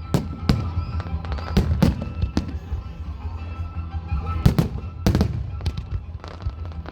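Fireworks display: a series of sharp shell bursts about every half second to a second, the loudest two coming about four and a half and five seconds in, over a low rumble.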